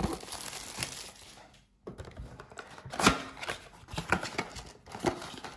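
Handling noise from opening a cardboard blaster box of trading cards: scattered rustles, taps and clicks, with a short gap near two seconds in and a sharp click about three seconds in.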